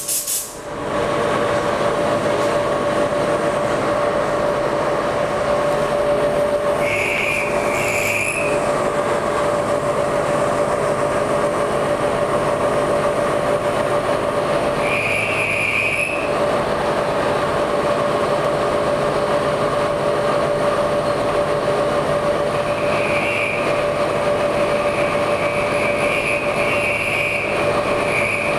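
CNC vertical knee mill cutting a bar: the spindle and end mill run with a steady whine. A higher squeal comes in for about a second several times as the cutter bites. A short hiss of compressed air comes at the very start.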